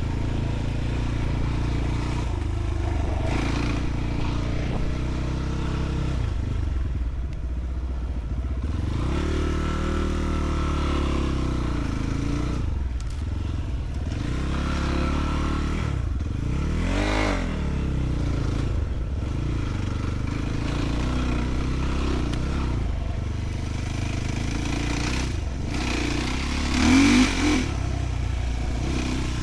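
Enduro motorcycle engine running while riding off-road, with the revs rising and falling several times. A brief louder rev comes near the end.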